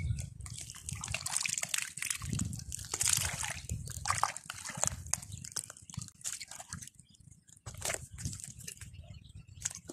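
Hands sloshing and splashing in a shallow puddle of muddy water while groping for fish, in irregular splashes with a short lull about seven seconds in.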